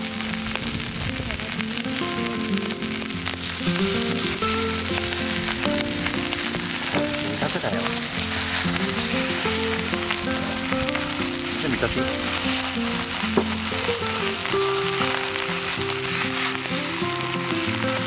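Leeks and beef sizzling steadily in a cast-iron pot over a wood fire, over background music with slow, held notes.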